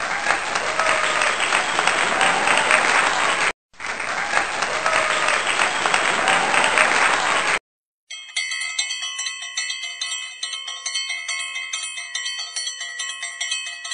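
Recorded applause and cheering, cut off briefly about three and a half seconds in and starting again, then stopping about seven and a half seconds in. After a short silence, a bell rings on and on with rapidly repeated strikes.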